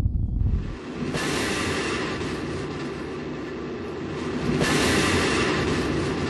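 Rocket engine roar at a launch: a loud, steady, hissing, crackling noise, with a deep rumble giving way in the first second and the noise stepping up about a second in and again after about four and a half seconds.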